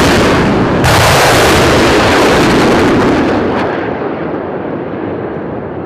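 Two large explosions, the second about a second in, followed by a long rolling rumble that slowly fades.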